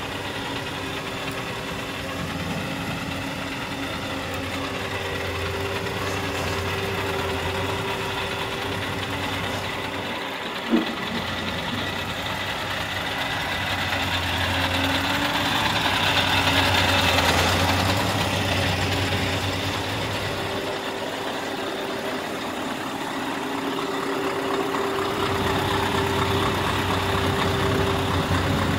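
Scania R520's V8 diesel engine idling steadily, with a single sharp click about ten seconds in.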